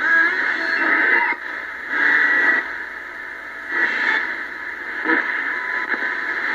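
Cobra 148 GTL CB radio fitted with a DDS VFO kit, receiving AM in the 31-metre shortwave broadcast band while being tuned upward in 10 kHz steps. Thin broadcast audio comes and goes in short stretches between patches of static as stations pass.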